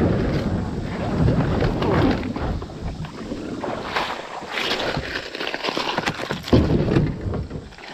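Water sloshing and splashing around a kayak, with scattered knocks and a rough rumbling on the microphone.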